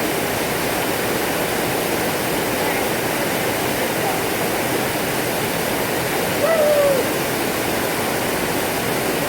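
Steady rushing of a waterfall. About six and a half seconds in, a short call rises briefly above the rush.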